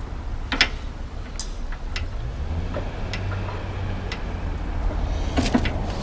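Scattered sharp metallic clicks and taps of parts and tools being handled at a bicycle's rear hub as the wheel is worked loose from the frame, with a few quick clicks close together near the end. A low steady hum sets in about two seconds in.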